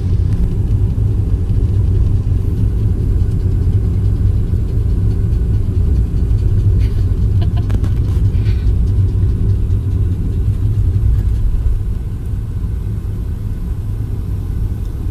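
Steady low rumble of a car on the move, heard inside the cabin, with a small dog panting in the footwell.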